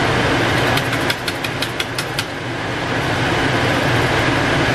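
Wooden spoon stirring chicken afritada in a wok over a steady low hum. About a second in comes a quick run of clicks, about six a second for a second and a half.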